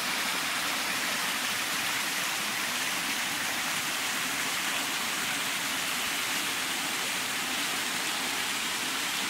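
Water of a small rocky creek rushing steadily over a cascade of rocks.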